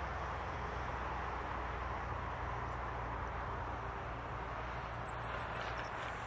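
Distant, steady jet noise from a departing Boeing 747-8F freighter's four GEnx-2B engines as it climbs away after takeoff, a rushing sound over a low rumble. A few short high chirps, like a small bird, come near the end.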